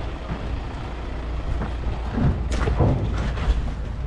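Steady low rumble of idling military and ambulance vehicles, with faint voices and a few knocks around the middle.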